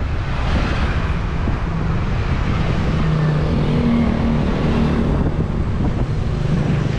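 Steady wind rush on the microphone of a camera on a moving road bike. A motorbike engine hums past about three to four seconds in.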